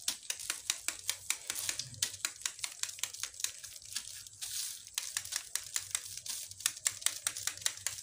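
Electric soldering irons dabbing plastic bag sheets onto a plastic kite skin to fuse them, making a quick, irregular run of small ticks and crackles, about five a second.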